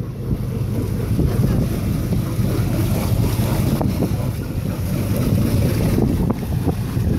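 Wind buffeting the microphone over a low, steady rumble, with the motor yacht's engines idling at the dock.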